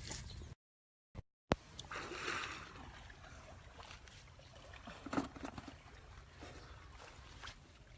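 Water splashing and trickling over a steady low rumble, with a few sharp knocks about five seconds in. The sound cuts out completely for about a second near the start.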